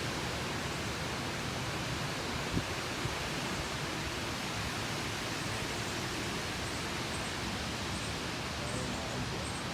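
Strong wind gust blowing, a steady rushing noise.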